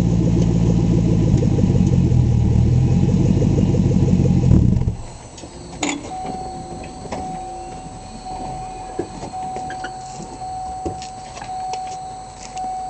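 Ford SVT Cobra 4.6-litre DOHC V8 in a 1999 Panoz AIV roadster running at a steady idle, then shut off abruptly about five seconds in. After it stops, a steady thin tone sounds with a few small clicks.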